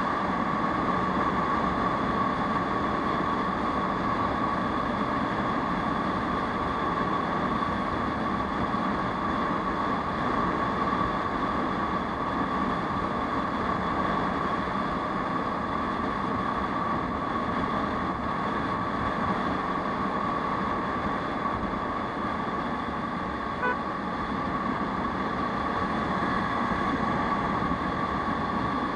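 Aprilia SR 150 scooter's single-cylinder engine running steadily at cruising speed, mixed with wind and road noise on the onboard camera's microphone. A very brief beep sounds once near the end.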